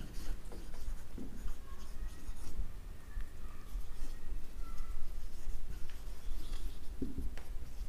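Marker pen writing on a whiteboard: irregular scratchy strokes with a few brief, faint squeaks.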